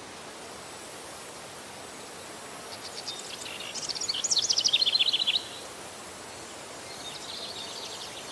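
Outdoor ambience: a steady background hiss with a bird singing a fast, high trilled phrase about three seconds in, loudest just before it cuts off, and a fainter trill near the end.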